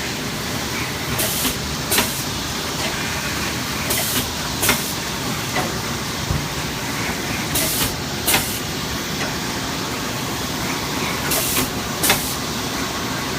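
Automatic shrink-wrap packing machine running with a steady mechanical hum, broken by short hisses that come in pairs about every four seconds as the machine cycles.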